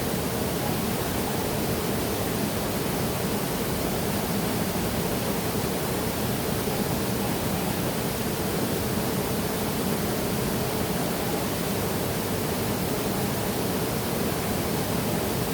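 Waterfall: water falling and rushing in a steady, unbroken roar with no change in level.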